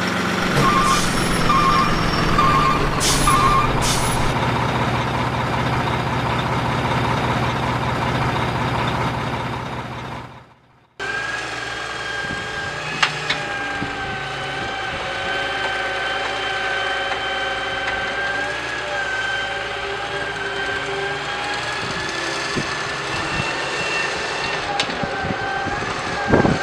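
Heavy truck engine sound slowing and falling in pitch, with a short beep repeated four times in the first few seconds. After a brief cut about ten seconds in, a steady high whine with a few clicks, from a remote-control toy excavator at work.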